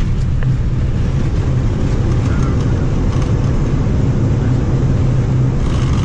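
Steady low rumble in an Airbus airliner's cockpit during the landing roll after touchdown.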